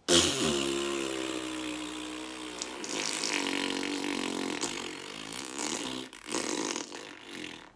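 A long, drawn-out fart noise blown through pursed lips, buzzing at a fairly steady pitch for about six seconds, then trailing off in a few shorter sputters.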